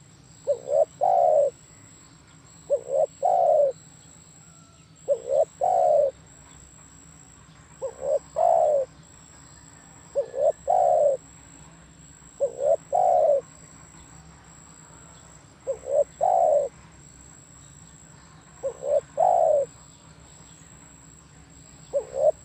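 Spotted dove (tekukur) cooing: a repeated phrase of two or three quick short notes ending in a longer coo, given about every two to three seconds.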